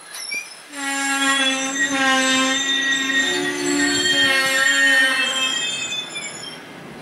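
DB Regio double-deck regional express train rolling through the station at a crawl, its wheels squealing. The squeal is long and made of several tones; it starts about a second in and fades near the end, with a short high squeal just before it.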